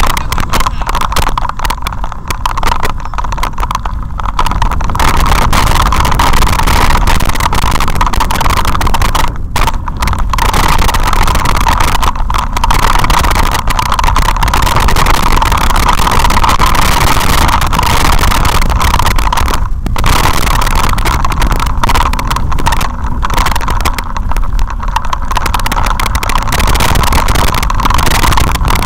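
Steady rattling and rushing from a vehicle-mounted camera shaken down a gravel dirt track: knocking of the mount, tyres on loose gravel and wind, with a constant mid-pitched rush and no engine heard.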